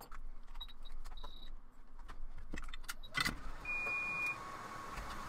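Workbench sounds during microsoldering: scattered clicks and tool handling, a loud knock about three seconds in, and a short electronic beep. A steady hiss with a faint whine runs from about three seconds on.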